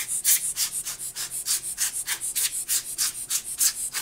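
Quick, evenly repeated hissing strokes, about five a second, of a dusty mechanical keyboard being cleaned out with its switches removed.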